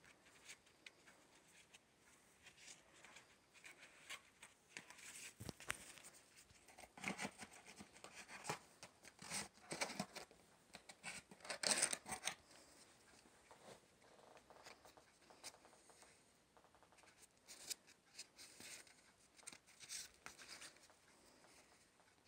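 Cardboard CD sleeves handled by hand: soft scraping, rubbing and light taps as they slide against each other and out of the box, busiest in the middle.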